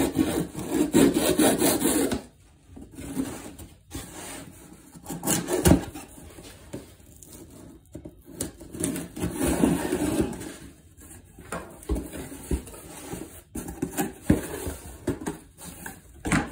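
A knife slitting the packing tape on a cardboard box, a scraping, rasping noise, then cardboard flaps opened and handled with rustling, rubbing and a few knocks. Near the end, plastic air-cushion packing is moved about.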